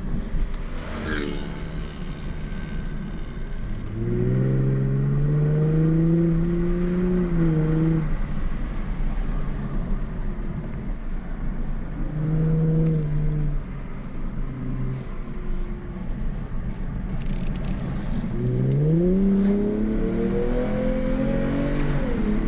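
Lexus IS350 F-Sport's V6 heard through a Borla Type-S axle-back exhaust with the window down, a low exhaust tone over steady wind noise. The tone rises in pitch as the car accelerates about four seconds in, comes back briefly around twelve seconds, and climbs again near the end.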